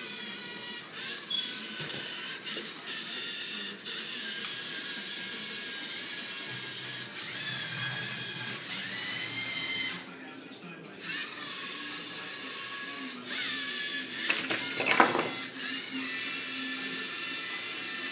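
LEGO Mindstorms robot's electric motors whining and its gears whirring as it drives and turns on the competition table, the whine changing pitch with each move, with a louder burst of motor noise about fifteen seconds in.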